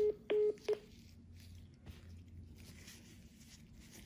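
Telephone beeping as a call ends: three short electronic beeps on one pitch in the first second, the last one clipped, followed by a low steady hum.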